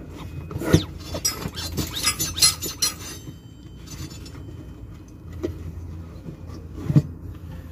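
Metal clinks and knocks from work on a truck's air-suspension mounting bracket, thick in the first few seconds, then sparser, with a louder knock near the end.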